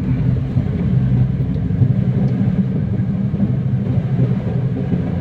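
Steady low rumble of a car's engine and tyres on the road while driving.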